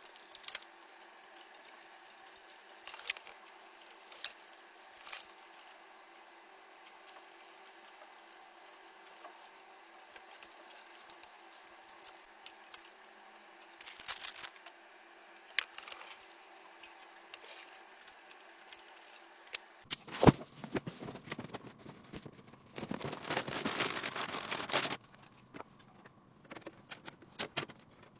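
Scattered small clicks and taps of hardware being handled, with a brief scrape about 14 seconds in, a sharp knock about 20 seconds in, and a longer stretch of rustling and scraping just after.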